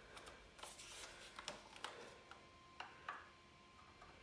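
Faint, scattered clicks and short scrapes of a hand screwdriver and metal parts being handled at the battery strap of an electric scooter's deck, growing quieter near the end.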